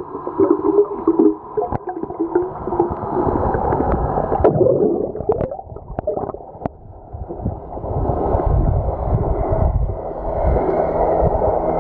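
Muffled underwater sound from a submerged camera: water gurgling and churning, with deep rumbling swells and a few sharp ticks.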